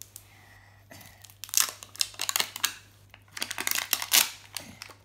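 The wrapper of an LOL Surprise ball crinkling and tearing as it is peeled open by hand, in several crackly spells that begin about a second and a half in.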